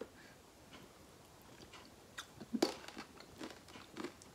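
Quiet eating sounds from a bowl of bakso aci soup: chewing and soft mouth smacks, with a few light clicks of a metal spoon in the bowl, mostly in the second half.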